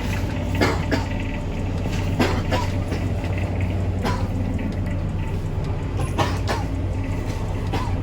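Steady low rumble of a vehicle moving, with a few short knocks at uneven intervals.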